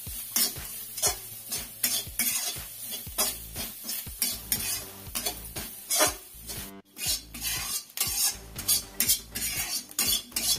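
Metal spatula scraping and stirring grated coconut around a wok in repeated irregular strokes, about one or two a second, with a light sizzle as the coconut roasts.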